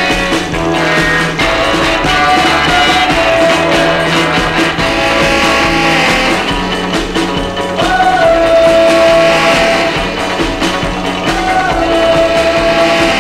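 Rock-and-roll music playing, with long held melody notes over a steady rhythm.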